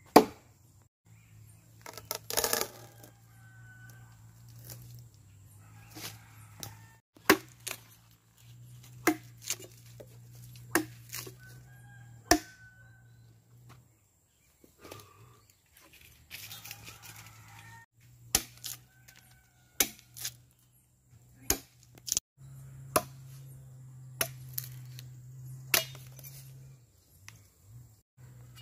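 Machete blows chopping into a wooden trunk: sharp single whacks roughly once a second, in short runs broken by brief pauses, over a steady low hum.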